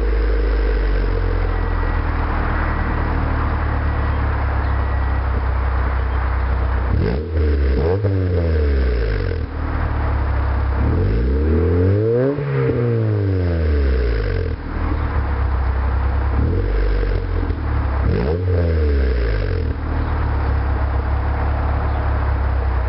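A 1995 Honda Civic LX's four-cylinder engine idling through a new Magnaflow cat-back exhaust, revved three times, each rev rising and falling back to idle, the longest and highest near the middle.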